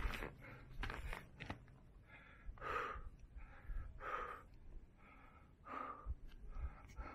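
A person breathing hard into the microphone, four loud, noisy breaths about a second and a half apart. There are a few sharp clicks in the first second and a half.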